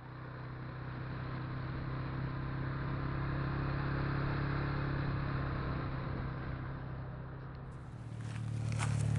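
ATV engine running at a steady speed, growing louder toward the middle and then fading. Near the end, clicks and rustling come in.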